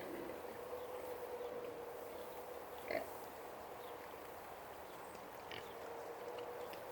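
Hogs grunting and calling now and then, with one brief louder call about three seconds in, over a steady faint hum.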